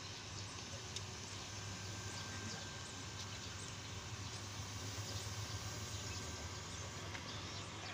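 Faint open-air ambience: a steady low hum under a light hiss, with faint high chirps scattered throughout.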